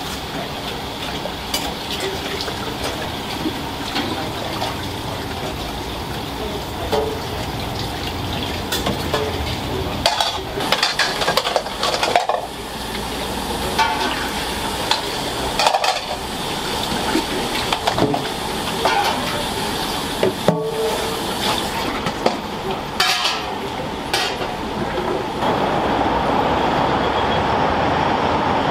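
Soba-shop kitchen work: bowls, pots and utensils clinking and knocking over a steady hiss, which grows louder near the end.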